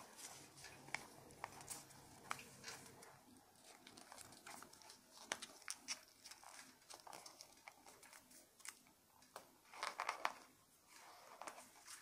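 Close-miked origami paper being folded and creased by hand: soft irregular rustles and crisp crinkles, with a louder flurry of crinkling about ten seconds in.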